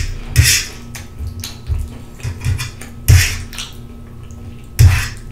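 A metal fork scraping and clicking on a metal sheet pan as spaghetti is twirled, with close-up eating sounds as a forkful goes into the mouth. There are three louder noisy bursts among the small clicks.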